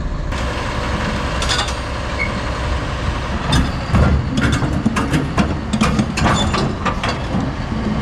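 Heavy diesel engine running steadily, with a series of metal clanks and knocks starting about three and a half seconds in, the loudest about four seconds in.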